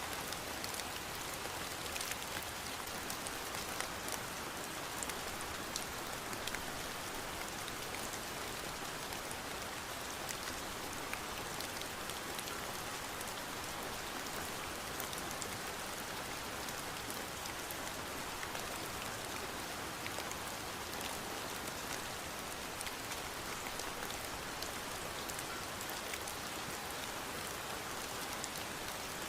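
Steady rain falling on a surface, with many small drop patters ticking through it.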